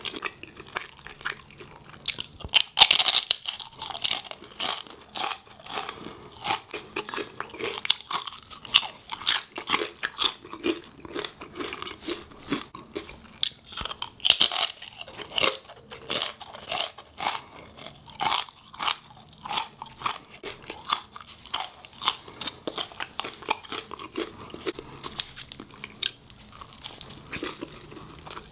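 Close-miked eating: crunching bites of fried tortilla chips and crisp-fried birria tacos with chewing in between, the loudest crunches about three seconds in and again around the middle.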